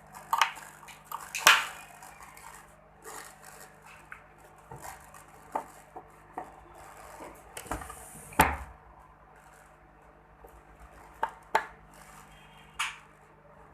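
Small metal tools and pieces clinking and knocking on a jeweller's workbench in irregular taps, the loudest about a second and a half in and about eight seconds in, over a low steady hum.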